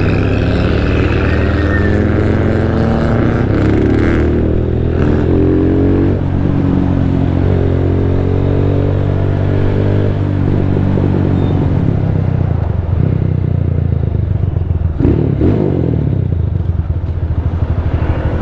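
Motorcycle engine running as the bike is ridden, its pitch climbing steadily through the middle as it accelerates, then dropping back and running lower for the rest. A few short knocks come through a third of the way in and again near the end.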